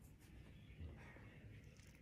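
Near silence: faint room noise.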